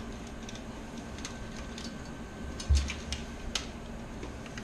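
Scattered light clicks and taps of hands handling computer hardware parts, with one dull thump a little past halfway, over a faint steady hum.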